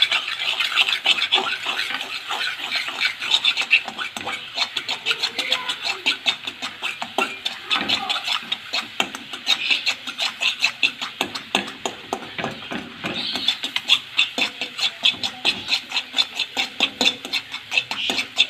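Spatula stirring and scraping scrambled eggs around a frying pan: quick, repeated scrapes against the pan as the eggs cook into small crumbs.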